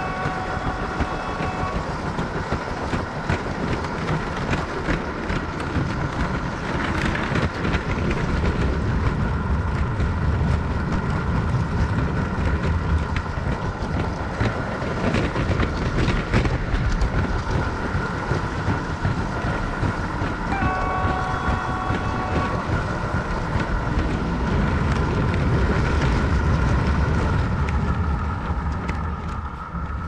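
LEGO train running on plastic track, its wheels clattering, with the locomotive's PFx Brick playing an engine sound effect. A several-note horn effect sounds briefly twice: right at the start and again about two-thirds of the way through.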